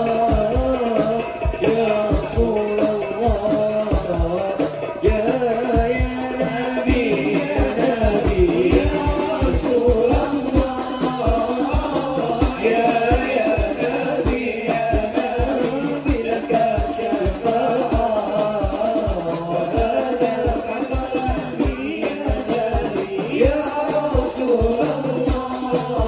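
Hadrah ensemble performing a sholawat: male voices singing a wavering melody over a fast, steady beat of frame drums (rebana), with rattling jingles.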